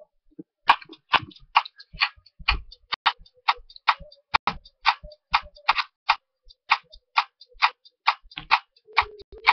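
Sharp clicks in a steady beat, about two a second, some with a low thump beneath them; a faint steady hum comes in near the end.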